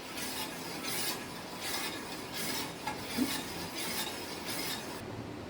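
A spoon stirring and scraping in a pot of boiling dry-ginger coffee: repeated rasping strokes, a little more than one a second, stopping shortly before the end.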